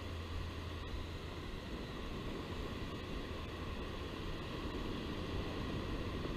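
Steady beach ambience at a calm sea: an even hiss with a low rumble underneath, and no distinct events.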